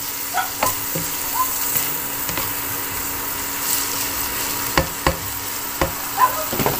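Chicken intestines sizzling in a nonstick pot with a steady hiss, as a spatula stirs them, knocking and scraping against the pan in a few short clicks.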